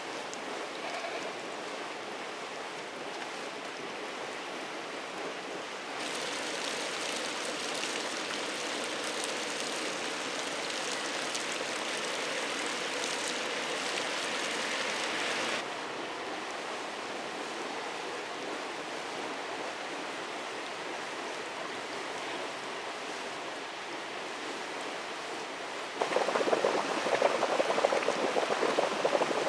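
Hot-spring water running and splashing steadily. From about six seconds in, a steaming spring spout pours into a pool with a brighter, hissier splash. A few seconds before the end a louder, lower-pitched water sound takes over.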